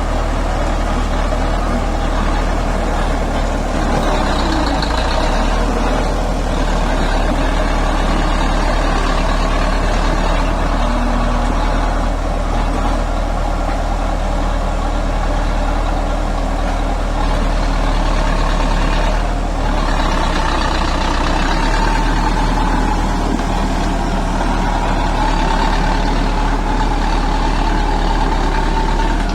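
Heavy diesel engine of construction machinery running steadily, a continuous low drone with a slight change in pitch around 4 to 5 seconds in and again around 20 seconds in.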